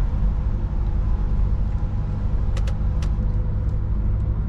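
Steady drone of a Scania truck's engine and road noise heard inside the cab while driving, with three faint short clicks between about two and a half and three seconds in.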